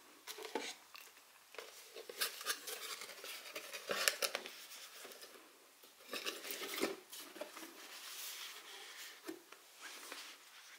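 Hands handling a boxed tarot deck and a cardboard mailing box on a wooden table: rustling and crinkling with light clicks and taps, busiest in the first seven seconds and quieter after.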